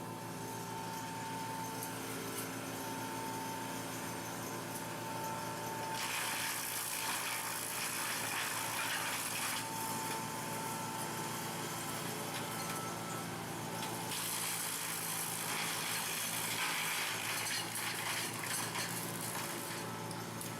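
A machine's engine running steadily, with two long stretches of louder, harsher noise over it, the first about six seconds in and the second about fourteen seconds in.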